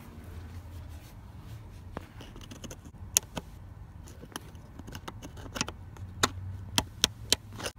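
Metal wrench working a seat-mounting bolt on a truck cab floor: a series of sharp metallic clicks, coming faster near the end, over a low steady hum.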